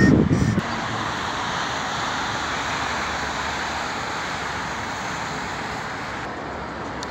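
Steady wash of distant road traffic noise, after a brief low rumble of wind on the microphone in the first half-second.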